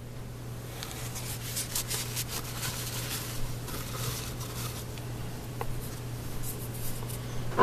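Paper towel crinkling and rustling as it is handled, a dense run of small crackles over a steady low hum.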